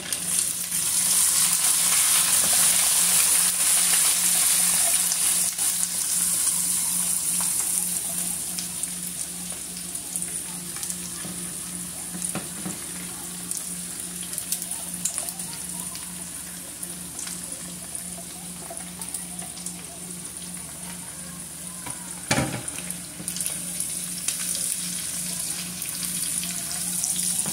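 Omena (small Lake Victoria sardines) frying in hot oil in a pan, a dense sizzle full of fine crackles, loudest for the first several seconds and then easing off, as a spatula stirs the fish. A single sharp knock about 22 seconds in.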